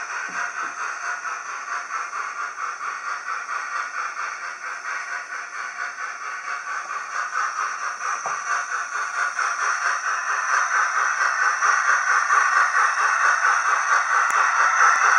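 Model train running on OO-gauge track: a steady whirring hiss from the motor and wheels with a fast, even rattling rhythm, getting louder over the last few seconds.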